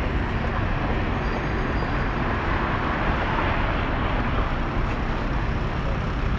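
Steady street and traffic noise with a low rumble as a tram creeps slowly over a track switch during a switch test, swelling slightly about three seconds in.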